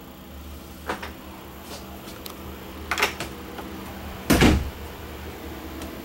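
Wooden cabinet doors being handled: a light click about a second in, a double knock near three seconds, and a louder, deeper thump of a door shutting at about four and a half seconds, over a low steady hum.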